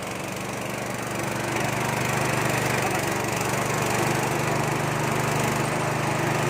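Nishikawa engine running steadily, driving a peanut grinding mill: a steady low engine hum under an even grinding noise.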